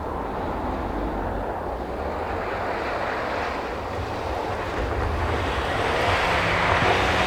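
Rally car approaching on a snow stage, its engine noise building steadily louder, with wind buffeting the microphone.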